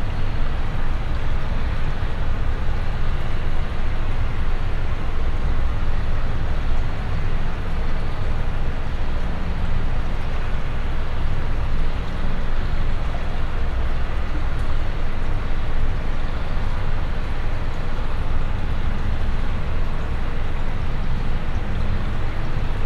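Steady, dense rumbling noise soundtrack, heavy in the low end, with no beat or melody: experimental noise-drone music.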